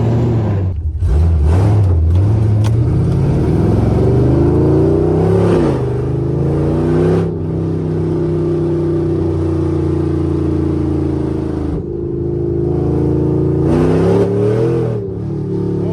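Camaro SS 6.2-litre V8 running on open long-tube headers with no pipes behind them, heard from the moving car: very loud. The revs climb, drop back about six seconds in, hold steady through the middle, then climb again and fall off near the end.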